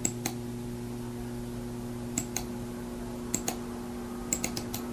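Computer mouse button clicks, sharp and mostly in pairs, every second or so, with a quicker run of four near the end, over a steady low hum.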